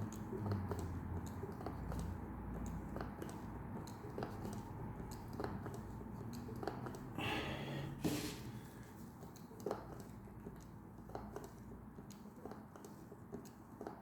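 Faint squelching and small clicks from gear oil being pumped by hand into the lower unit of a Mariner 25 hp two-stroke outboard, with a short rush of noise about seven seconds in.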